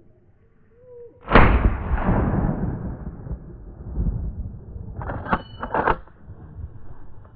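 A single hunting gun shot fired at a wild boar, sudden and loud, with a long rolling echo. About four seconds later come two shorter, quieter sharp cracks.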